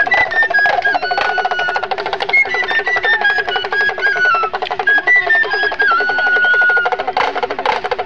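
A high-pitched pipe or flute melody played in short, stepped, descending phrases over a fast, steady pulsing beat: street-magic show music.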